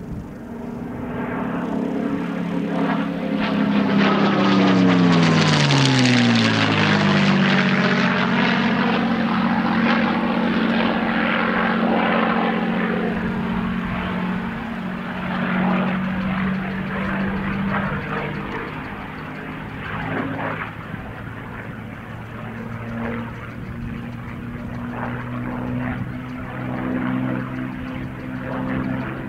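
P-51D Mustang's Packard-built Merlin V12 engine as the fighter makes a fast pass. The engine note rises to its loudest about five seconds in and drops in pitch as the plane goes by. After that the engine drone holds steady, somewhat quieter and wavering.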